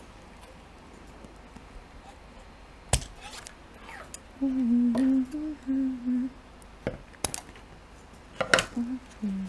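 Scissors snipping through plastic synthetic whalebone corset boning: one sharp cut about three seconds in and a few more near the end. In between, a woman hums a short tune, which is the loudest sound.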